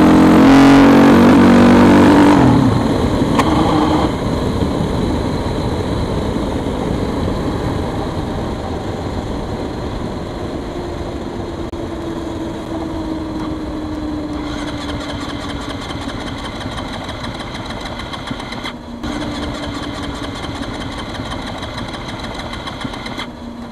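Husqvarna SM510R supermoto's single-cylinder engine running hard under throttle, then its note drops away about two and a half seconds in. The rest is quieter riding noise, wind and tyres, with a slow falling whine in the middle, as the bike rolls on; this fits the bike running out of fuel.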